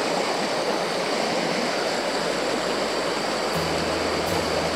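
Small mountain creek running steadily over rock ledges. About three and a half seconds in, background music with low sustained notes comes in under it.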